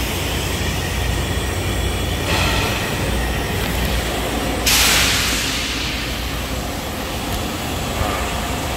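Steady low machinery hum with bursts of compressed-air hiss from a pneumatic vacuum glass lifter: a short hiss about two seconds in, then a sudden, louder blast of air about five seconds in that fades over a second or so.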